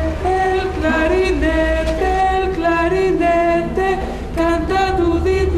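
Group of voices singing long held notes that step from pitch to pitch, as in a vocal-class tuning exercise. A steady low hum runs underneath.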